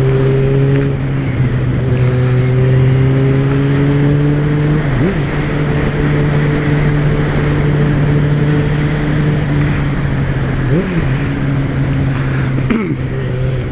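Yamaha XJ6's inline-four engine running at a steady cruising speed under way, a constant engine note with a few brief pitch wobbles, over a rush of wind and road noise.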